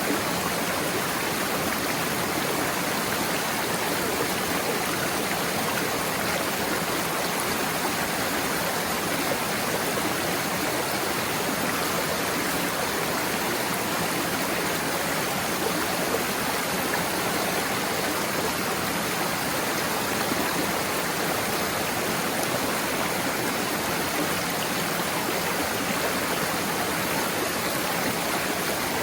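Small waterfall and stream rushing over rocks, a steady, even roar of water.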